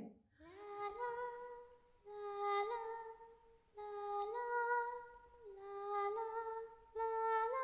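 A woman's voice singing a slow melody in five short phrases of held notes, each phrase stepping between a few pitches, with brief pauses between them.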